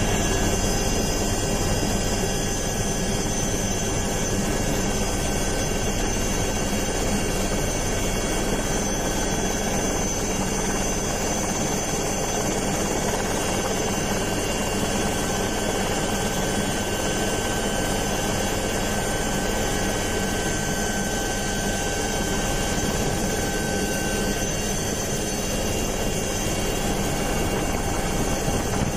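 Steady engine and rotor noise of an aircraft, with several constant whining tones over an even rushing noise and no change in pitch or level.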